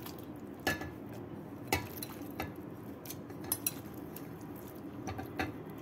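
Light knocks and clinks on a stainless-steel mixer-grinder jar, spread out and irregular, as raw chicken pieces are put into it.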